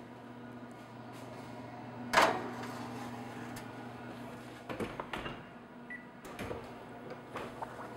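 A metal baking sheet carrying a tart is set onto an oven rack with one sharp clank about two seconds in. Lighter clicks and knocks follow as it is slid into place and the oven door is handled, over a low steady hum.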